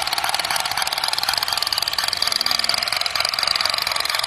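Battery-powered toy assault rifle firing with the trigger held: a steady, rapid machine-gun rattle from its small built-in speaker. It starts abruptly and is thin and high, with little bass.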